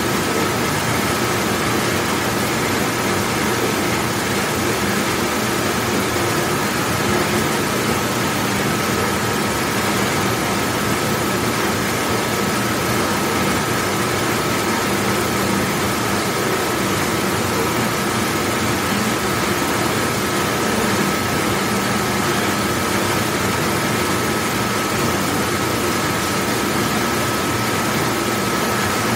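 Large commercial dishwashing machine running: a steady, even rush of noise with a constant high whine over it.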